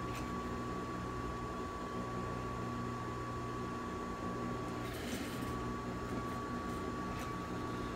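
Industrial sewing machine running as fabric is sewn: a steady motor hum with a thin high whine, and a brief burst of noise about five seconds in.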